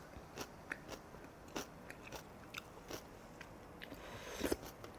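A person chewing food close to the microphone: soft, irregular crunching clicks, with a louder knock about four and a half seconds in.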